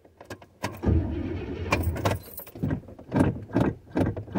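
Starter cranking the 1986 Chevrolet Caprice's carbureted engine for about a second and a half, starting about a second in, without the engine catching.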